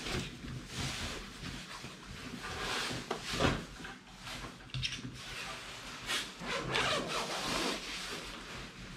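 Irregular rustling and scraping, like things being handled and moved about, with a few light knocks.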